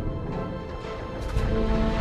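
Theme music with held notes over a heavy low end; it gets louder about one and a half seconds in.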